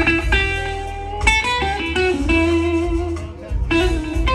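Live blues band with a lead electric guitar playing long held notes, some bent or sliding in pitch, over bass guitar and a steady low end.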